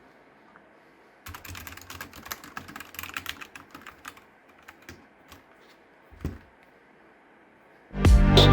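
Typing on a Havit KB498L 60% keyboard fitted with custom keycaps: a quick run of key clicks for about three seconds, then a few scattered keystrokes and a single thump. Loud electronic music starts near the end.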